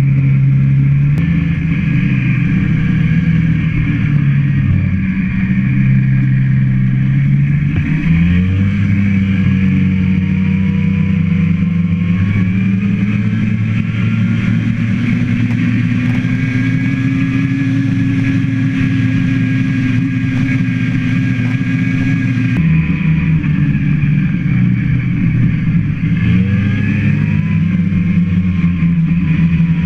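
A vehicle engine running loudly, its pitch stepping and gliding up and down as the throttle and speed change.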